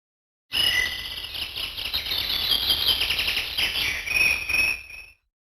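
Samsung SPH-X7700 ringtone of rapid chirping and trilling nature sounds, like birds and crickets, starting about half a second in and stopping shortly before the end.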